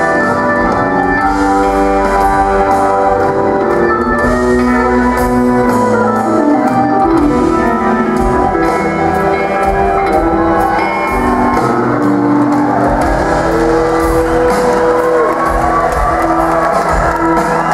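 A live rock band plays a slow blues: held organ chords and electric guitar with bent notes, over bass and drums. There is one clear upward bend about 14 seconds in.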